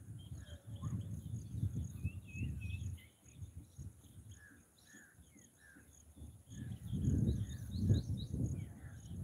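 Outdoor ambience of small birds chirping and insects buzzing steadily. Underneath is a low, uneven rumble, loudest at the start, dropping away for a few seconds, then swelling again about seven seconds in.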